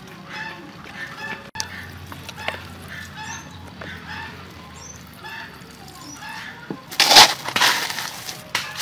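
Chickens clucking repeatedly in the background, then loud crinkling and rustling of a thin plastic bag being handled from about seven seconds in.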